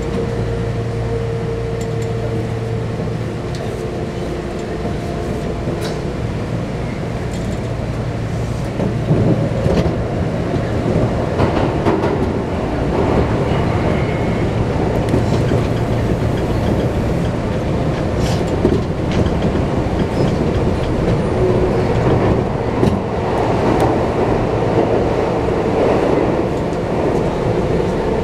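Electric train running, heard from inside the front car, with a steady hum and running noise. It grows louder and rougher from about nine seconds in, as the train enters a tunnel, and the wheels click now and then over the rail joints.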